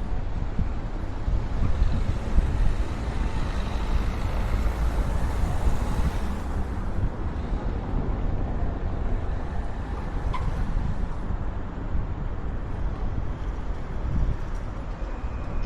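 Wind rumbling on the Insta360 X4 camera's microphone behind its wind protector, with road traffic; a vehicle passes about five seconds in.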